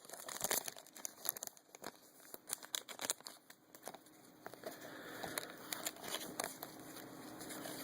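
Trading cards being handled and flipped through by hand: a run of light, irregular clicks and rustles.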